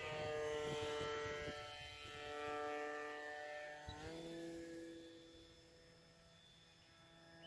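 Electric motor and propeller of a small foamboard RC aerobatic plane buzzing in flight at a steady pitch. The pitch steps up a little about four seconds in, and the sound fades as the plane flies farther off.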